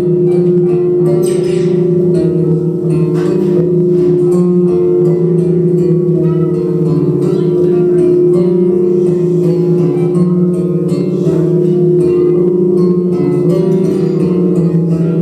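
Live droning music: a steady held tone under layered, slowly shifting tones, continuous and loud throughout.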